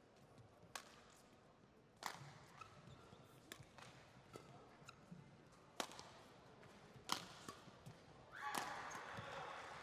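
Badminton rackets striking a shuttlecock in a doubles rally: about five sharp, crisp hits at uneven intervals, with faint shoe squeaks on the court between them. Near the end the rally stops and voices swell.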